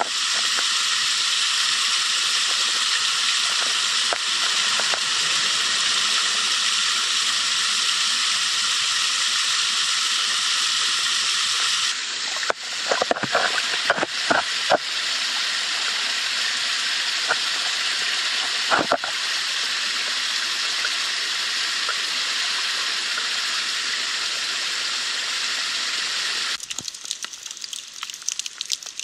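Storm runoff rushing into a street drain grate, a loud steady rush of water. About twelve seconds in the rush changes abruptly, with a few sharp knocks, then runs steady again. Near the end it turns choppier as floodwater bubbles up out of a drain.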